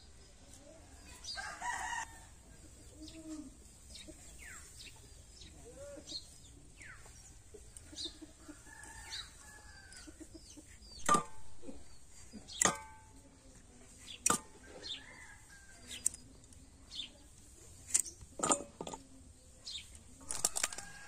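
Green papaya being cut on a boti, a curved blade fixed on a wooden base, with scattered sharp clicks and a few short metallic clinks, the loudest about halfway through. Chickens call in the background.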